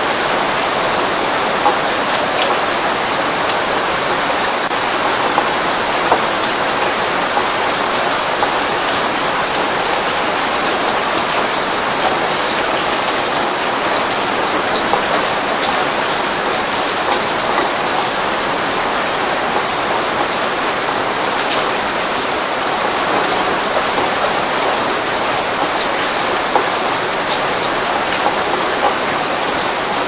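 Heavy rain falling steadily: a dense, even hiss with many scattered sharp ticks of individual drops.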